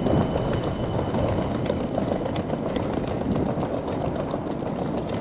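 Wheels of a rolling suitcase rattling and rumbling over paving stones in a continuous clatter.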